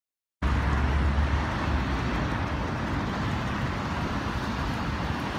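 Outdoor street ambience of road traffic: a steady, even rush of cars, cutting in suddenly about half a second in.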